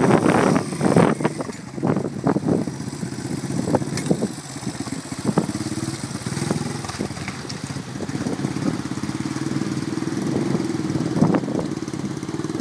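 Dirt bike engine running steadily through a river crossing, with irregular sharp knocks in the first half.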